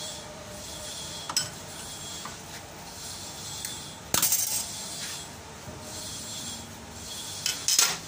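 Sharp metallic clinks of a steel spanner against the fittings of a rotary diesel injection pump: a handful of separate clinks, the loudest about four seconds in and a quick pair near the end.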